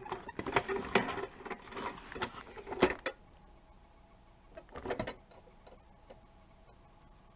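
Plastic toy garbage truck and its cardboard packaging being handled by hand: a flurry of clicks and rattles for about three seconds, then a shorter burst about five seconds in.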